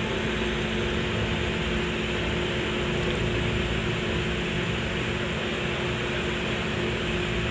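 Steady background hiss with a low, even hum underneath, unchanging throughout, of the kind a room fan or ventilation makes.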